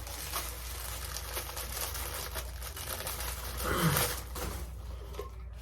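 Close handling noise of brass pipe fittings and tools: a steady crackly rasping with many small clicks, and a louder scrape about four seconds in.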